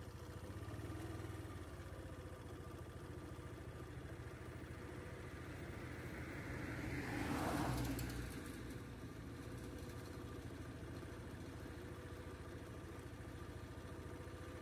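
A vehicle engine idling steadily. About halfway through, the rushing sound of another vehicle passing swells and fades.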